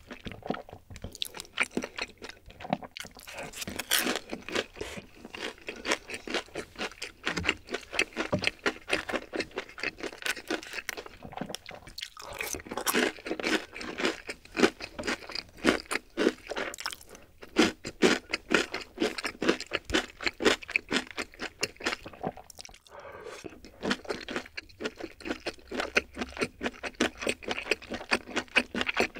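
Close-miked chewing of a mouthful of rosé tteokbokki: a steady run of quick crunchy, clicky chewing sounds, broken by short pauses about 12 and 23 seconds in.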